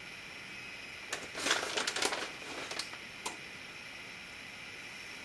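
Brief rustling and scraping with a few light clicks, the handling sounds of shredded cheese being added to spaghetti squash boats in a metal baking pan.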